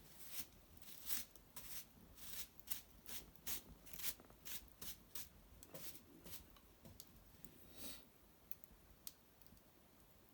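Small fire of dried maple brushwood crackling, with irregular sharp pops two or three a second for about eight seconds, then only a few scattered pops.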